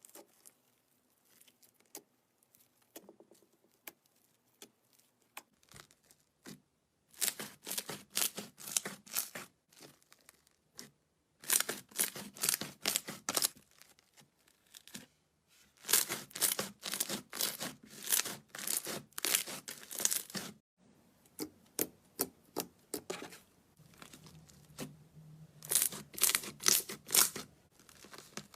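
Slime being squeezed and worked by hand, giving off spells of rapid crackling and popping clicks a few seconds long, with short quiet pauses between them.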